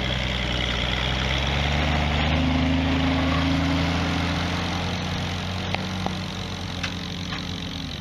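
Allis-Chalmers WD-45 tractor's factory six-cylinder engine running steadily as it pulls a plough past, loudest a few seconds in and fading as it moves away. A few faint clicks near the end.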